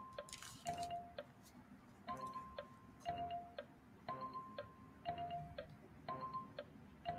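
Countdown timer sound effect: short chime-like tones about once a second, alternating between a higher and a lower pitch like a tick-tock, each starting with a click. It plays faintly.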